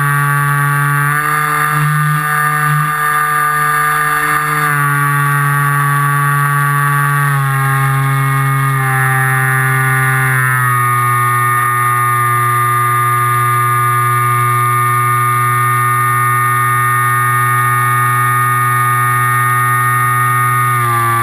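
An FPV aircraft's motor and propeller running in flight: a steady drone whose pitch steps down a few times as the throttle changes, settling lower from about a third of the way in.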